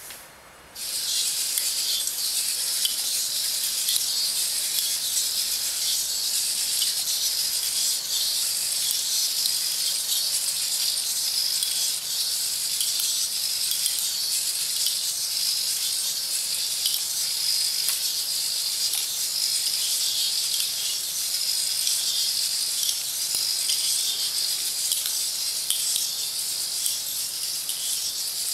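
Hobby servos of a small walking biped robot running, heard as a steady high hiss that starts abruptly about a second in.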